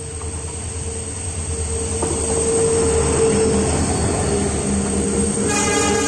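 Diesel locomotive hauling a passenger train, approaching and passing close by: a steady engine rumble with a held tone, growing louder as it nears. Near the end a sustained sound of many pitched tones joins it.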